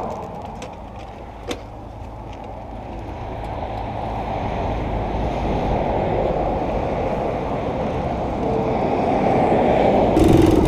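1974 Honda PC50 moped's 49cc engine running as the bike rolls along, with wind on the microphone. It grows steadily louder, with a single click about a second and a half in and a louder, steadier engine note near the end.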